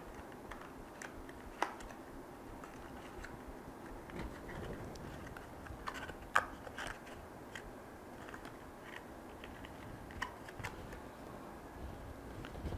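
Faint handling of thick cardstock as a paper cake box is folded and fitted together by hand: light rustling with scattered small clicks and taps, the sharpest about six seconds in.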